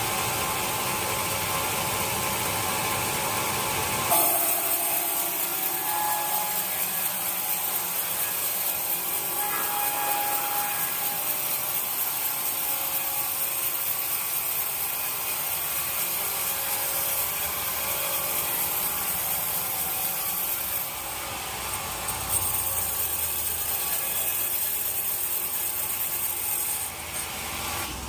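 Sawmill saw cutting through wood. A steady machine noise turns sharply into a harsher, higher cutting noise about four seconds in. That noise eases briefly past the middle, comes back, and falls away near the end.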